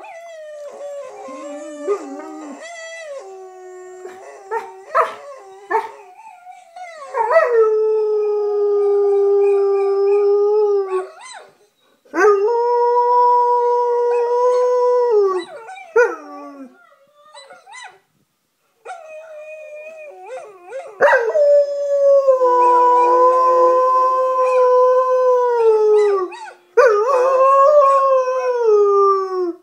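German Shepherd howling along with the howling of dogs played back from a video. The first several seconds hold quieter, wavering, overlapping howls. After that come about four long, held howls of several seconds each, every one sliding down in pitch as it ends.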